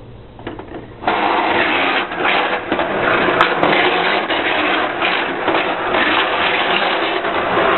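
Technofix Coney Island tin toy starting up about a second in. Its motor runs with a steady whir and clatter as the small tin cars run along the metal track.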